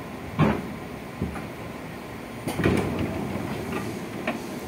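Running noise inside a JR 205 series commuter train car: a steady rumble with a loud sharp knock about half a second in, a cluster of knocks and rattles around two and a half seconds in, and a lighter knock near the end.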